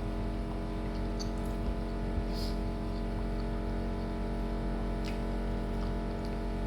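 A steady mechanical hum with many even tones, unchanging throughout, with a few faint clicks and taps over it.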